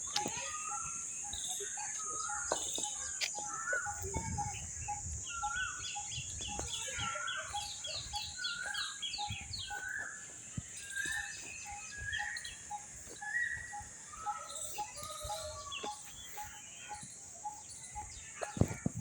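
Many birds chirping and calling together over a steady high-pitched hiss. One bird repeats a short note about three times a second, and a fast trill comes in near the middle.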